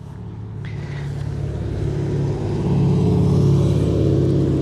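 A passing road vehicle's engine hum, growing louder for about three seconds and then holding.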